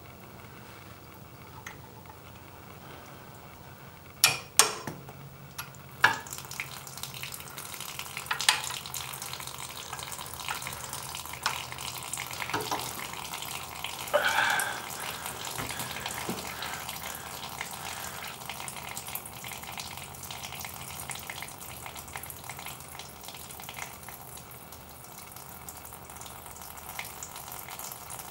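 Water that has collected inside a Husqvarna TR650's hollow swingarm draining out of a drilled hole in a thin stream and splashing steadily below. A few sharp knocks about four to six seconds in.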